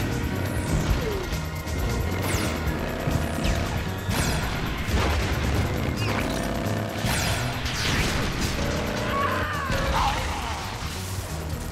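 Cartoon battle sound effects: a string of sweeping energy-blast zaps and crashes, one every second or so, over a driving action music score.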